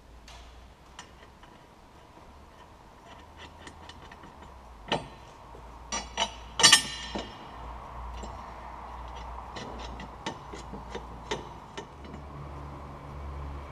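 Scattered metallic clicks and knocks from a steel towbar mounting plate and its bolts being handled and fitted against a van's chassis. A few louder clinks with a brief ring come about five to seven seconds in.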